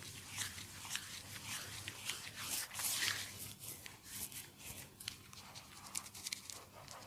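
Close, crackly rubbing and scraping of hands working over skin during a face cleanup, with many small sharp clicks scattered through it.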